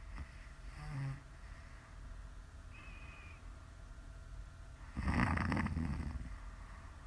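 A woman snoring in her sleep. A short, soft snore comes about a second in, then a much louder snore of about a second starts about five seconds in, with a brief high whistling tone between them.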